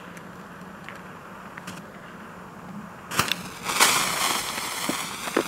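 Funke Tuono firecracker's fuse hissing, then about three seconds in the cracker starts spitting sparks with a loud sizzling, crackling burst that carries on for a couple of seconds. A few sharp ticks of footsteps near the end.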